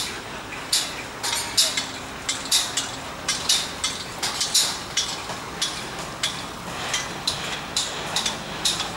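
Metallic clanks and hammer strikes from building work on steel scaffolding and formwork, irregular, about two a second, over a steady low background rumble.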